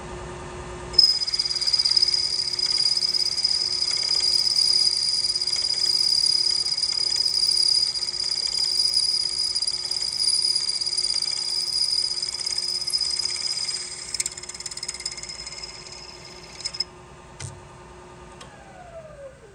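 Milling machine spindle running, then a twist drill cutting into an aluminum brake caliper from about a second in with a steady high-pitched whine, drilling out a stripped hole for a Helicoil insert. The cutting sound fades and stops about three seconds before the end as the drill comes out, and the spindle then winds down with a falling tone.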